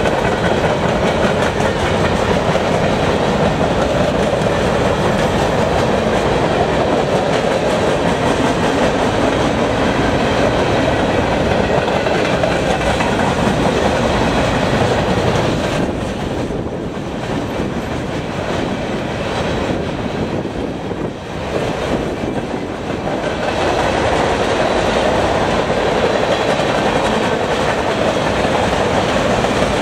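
Freight train of empty centerbeam flatcars rolling past, steel wheels running on the rails with a steady rattle; the noise dips for several seconds around the middle, then comes back up.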